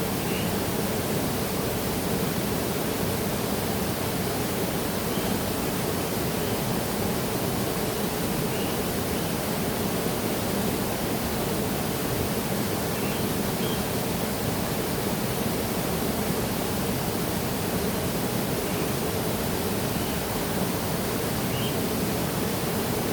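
Waterfall: the steady rush of falling water, an even, unbroken noise.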